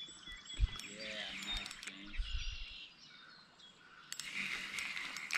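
Songbirds chirping and singing over outdoor noise, with a few soft low bumps and a short hissing rush near the end.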